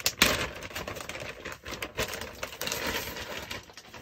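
Rustling and irregular clicking of nylon chest-rig gear and its plastic buckles being handled, with a sharp click about a quarter second in.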